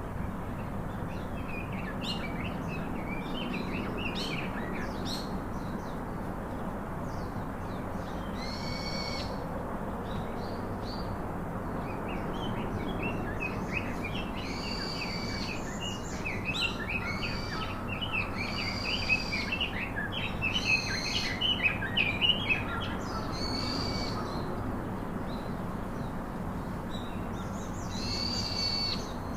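Birds chirping and calling: clusters of short, quick chirps, and a longer call repeated every few seconds that is most frequent in the second half, over steady background noise.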